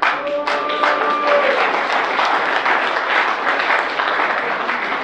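An audience clapping, a dense steady patter of many hands, with a brief held tone from a voice or whistle in the first second or so.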